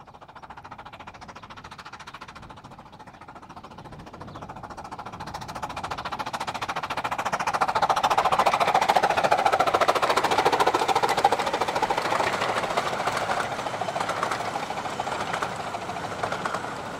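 A 15-inch-gauge miniature steam locomotive and its train passing, with a fast run of exhaust beats and wheel noise. It grows louder to a peak about halfway through, then slowly fades away.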